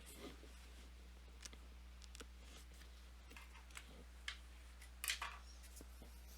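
Faint handling of paper pads: scattered soft clicks and taps, with a brief rustle about five seconds in, over a steady low hum.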